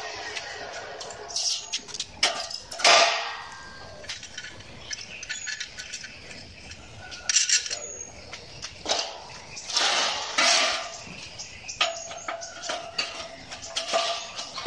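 Hollow metal tubes being handled: irregular clanks, knocks and scrapes of metal on metal, concrete and a roller support stand, the loudest clank about three seconds in.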